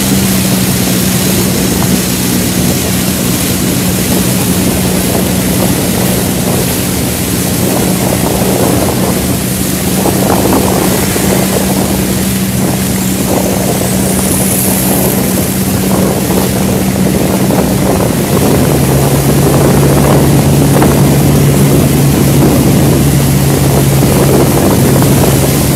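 Motorboat engine running steadily under way, over wind buffeting the microphone and the rush of water past the hull. About three-quarters of the way through, the engine's note shifts lower and gets a little louder.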